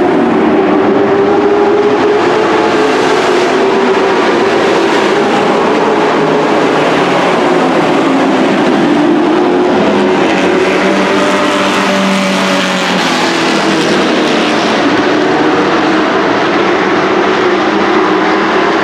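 Engines of dirt-track race trucks running at racing speed, several at once, their pitch rising and falling as they lap the oval.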